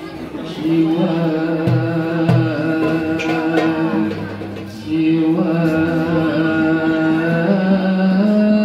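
A young man's solo voice chanting sholawat, Islamic devotional song, into a microphone without accompaniment. He holds long notes with winding ornaments, takes a short break about five seconds in, and steps up to a higher note near the end.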